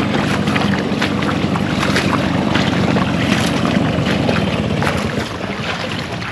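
Small two-stroke scooter engine running as the scooter is taken through a shallow stony stream, with water splashing and stones clicking around the wheels. The engine gets quieter about five seconds in.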